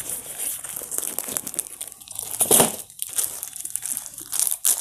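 Packaging rustling and crinkling as a box of packed T-shirts is opened and its contents handled, in irregular bursts with the loudest rustles about halfway through and again near the end.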